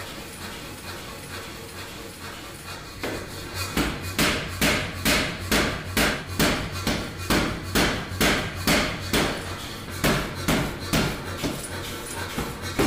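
Large air power hammer striking a hot steel billet. The blows start about three seconds in and come evenly, a little over two a second, with a short break near the ten-second mark before they resume.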